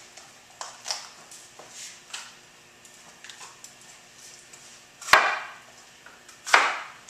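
Chef's knife cutting a red bell pepper into quarters on a cutting board: a few light knife taps, then two louder chops near the end, about a second and a half apart.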